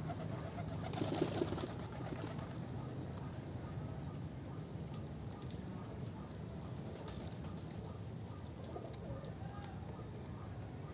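A dove cooing, a low call near the start and again about nine seconds in, over steady faint outdoor background noise.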